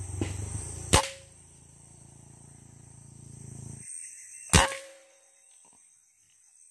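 Two air rifle shots about three and a half seconds apart, each a sharp crack followed by a brief ringing tone.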